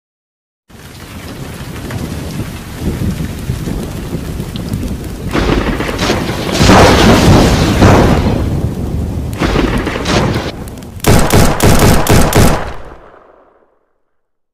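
Dramatic intro sound effects: a rising bed of rumbling noise with heavy crashes, ending in a quick run of about six hard hits, then fading away.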